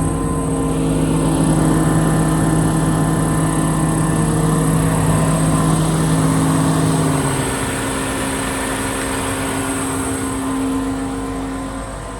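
Truck diesel engine running steadily with a high whine over it; about seven and a half seconds in, its lowest tone drops away and the sound eases a little.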